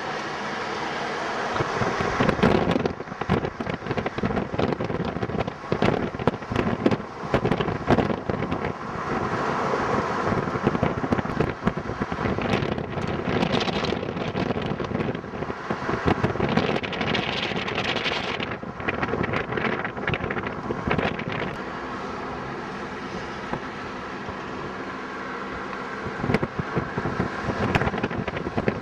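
Wind buffeting the microphone in irregular gusts and crackles, over the steady noise of a car driving along the road.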